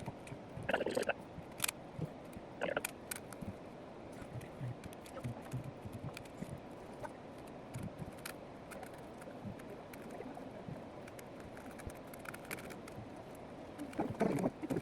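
Scattered sharp plastic clicks of a 4x4 Rubik's cube being turned, over a steady background hiss.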